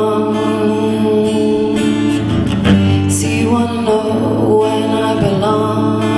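Live song: strummed acoustic guitar with a woman singing long held notes over a steady low note.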